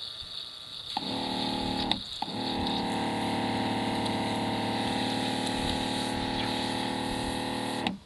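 Portable battery-powered pressure washer with a built-in water tank, its electric pump humming steadily as water sprays from the hand gun. It starts about a second in, stops briefly near two seconds, then runs evenly until it cuts off just before the end.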